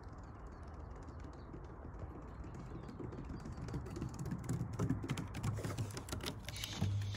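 A Xoloitzcuintle dog's claws and paws clicking on a wooden boardwalk as it runs up, the rapid clicks growing louder as it comes close and passes by.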